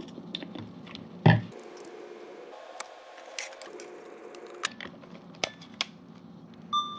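A pump spray bottle of isopropyl alcohol pressed onto a foam swab, once and sharply, then scattered clicks and plastic handling noises as a Sony TRV-11e Mini DV camcorder is turned over and its tape compartment opened. A short electronic beep comes near the end.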